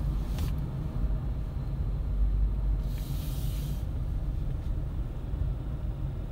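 Low, steady rumble of a Toyota Wish heard from inside the cabin, the car running quietly on newly replaced original engine mounts. A brief hiss comes about three seconds in.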